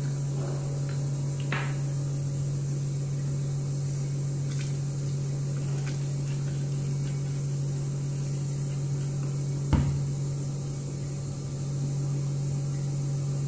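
A steady low hum, with a few faint clicks and one sharp knock about ten seconds in.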